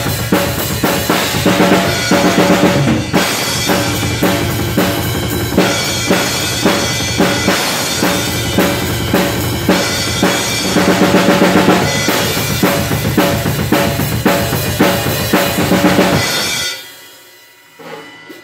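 Acoustic drum kit played hard and fast: kick drum, snare and crash cymbals in a dense, driving beat. The playing stops suddenly near the end, leaving only a faint ring.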